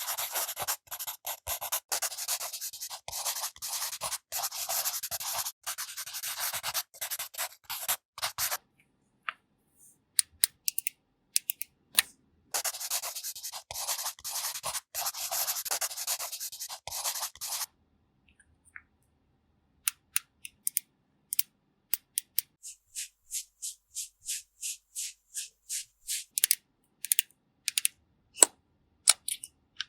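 Makeup being applied for ASMR: dense brushing and scratching of a brush or applicator rubbed fast against a surface, in two long stretches with a short pause between, then scattered clicks and a steady run of sharp taps, about two a second, near the end.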